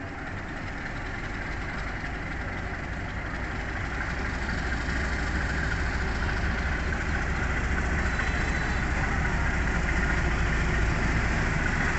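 Diesel locomotive engine running as the train pulls out and rolls slowly toward the listener. It is a deep, steady rumble that grows gradually louder as the locomotive approaches.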